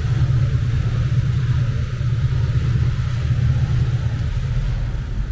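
Car ferry under way: a steady low rumble from its engines and propeller churning the wake, with an even hiss above it. The deepest part of the rumble grows stronger near the end.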